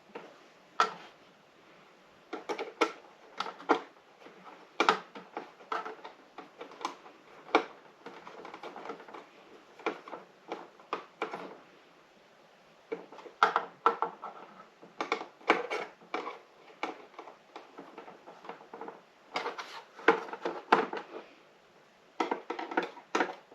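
Metal and plastic parts of a monitor arm being handled and fitted: irregular clinks, clicks and knocks with some scraping, and a short lull about halfway.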